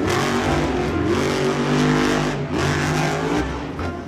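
Monster truck engine revving hard, its pitch rising and falling several times.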